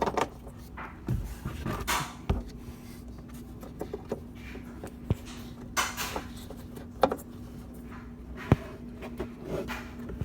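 Hands handling hard plastic automotive lighting parts and trim: scattered sharp clicks and short rubbing scrapes, irregular, as the LED reverse-light bulb and socket are fitted back into the housing.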